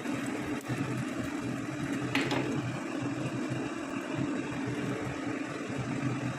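Cumin seeds sizzling in hot oil and butter in a pan, a steady hiss over a low hum, with one brief sharp sound about two seconds in.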